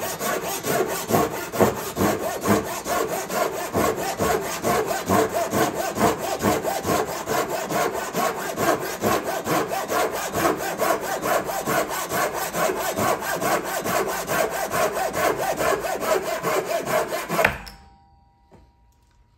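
Mitsukawa hand-forged Japanese ryoba saw cutting a block of hinoki (Japanese cypress), in quick, even strokes at about four a second. The sawing stops suddenly near the end as the piece is cut through.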